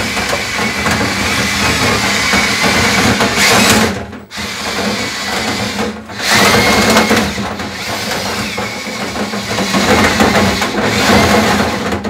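A cordless drill spinning a string of dryer vent brush rods up the vent duct, with the rods rattling and scraping inside the pipe. The drill stops briefly about four seconds in and again around six seconds.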